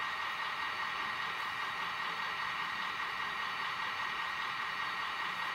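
ESU model-locomotive sound decoder playing the idling diesel engine of a class 246 locomotive through its small onboard loudspeaker: a steady hissing run with a steady high tone in it.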